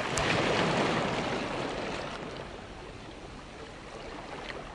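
Ocean surf washing onto a beach: a hiss of breaking water that comes in all at once and slowly dies away.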